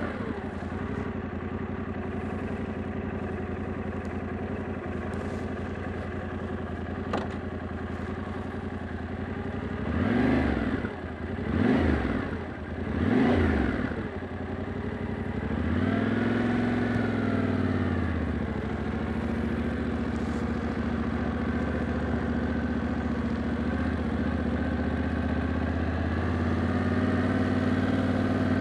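Yamaha Ténéré 700's 689 cc parallel-twin engine idling steadily, then blipped three times in quick succession about ten seconds in. A few seconds later it revs up and settles as the bike pulls away, then runs steadily at low road speed, rising a little near the end.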